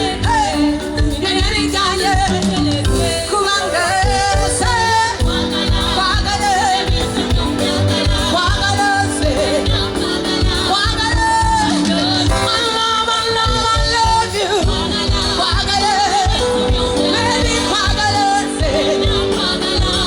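Amplified live pop music: a woman singing a melody over a steady pulsing bass beat.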